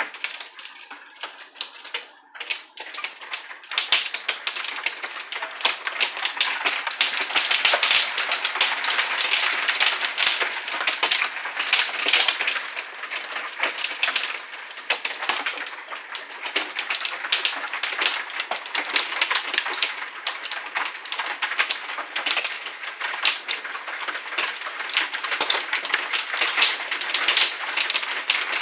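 Hail mixed with rain pelting a wooden deck and the window glass: a dense patter of small, hard ticks. It is sparse for the first few seconds and thickens into a steady clatter about four seconds in.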